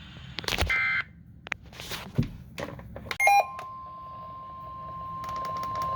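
Weather radio warning alarm tone: a single steady pitch around 1 kHz that starts about three seconds in and holds, growing louder. Just under a second in there is a short burst of digital data tones, with a few clicks scattered around.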